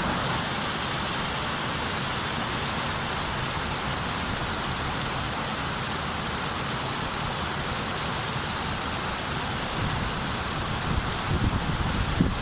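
Steady rush of the Venta Rapid, the wide, low waterfall on the Venta river, as an even roar of falling water. A few low rumbles break in near the end.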